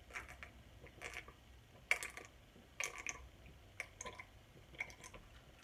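A person drinking fruit-infused water from a glass mason jar, gulping and swallowing at close range, with short soft gulp sounds about once a second.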